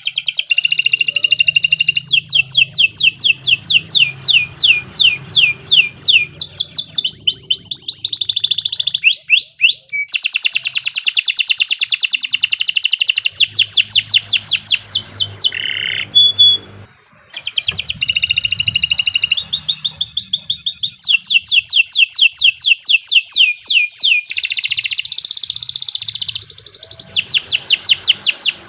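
Domestic canary singing a long, continuous song of rapid trills, each phrase a fast run of repeated notes that changes to a new note type every second or two, with two short breaks.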